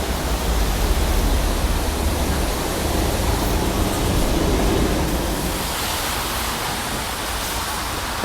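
Wind buffeting the microphone: a steady rumbling noise that thins out and turns hissier about five and a half seconds in.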